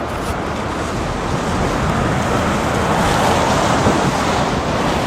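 Strong wind rushing and buffeting the microphone, building slowly louder.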